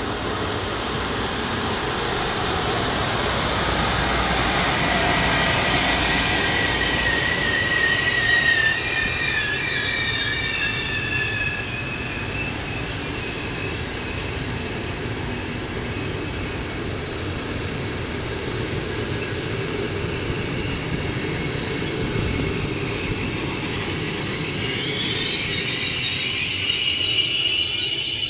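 An InterCity train hauled by an FS E.402A electric locomotive runs into the station past the platform, with the steady rumble of wheels on rails. A squeal from the braking train rises about a quarter of the way in, and a cluster of higher squeals builds near the end as it slows to a stop.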